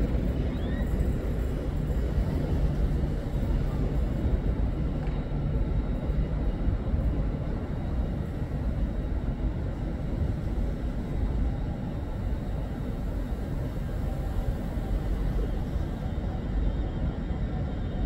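Steady low rumble of a train running in a station, with a faint steady hum over it and no distinct knocks or horns.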